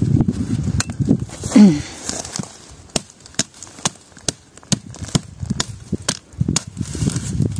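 Azuela (adze) chopping suckers off the base of an olive trunk with upward strokes: sharp blade-on-wood strikes, about two to three a second, starting about three seconds in. Before the strikes begin there is rustling of the shoots and handling.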